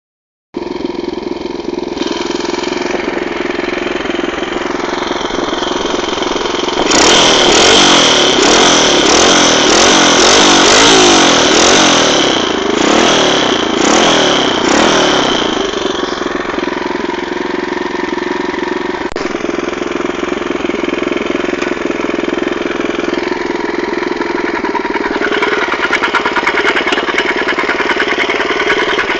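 Motorcycle engine, its valve clearances freshly set, idling, then revved several times in neutral from about seven to fifteen seconds in before dropping back to idle. Near the end a faster, finer ticking comes in over the idle.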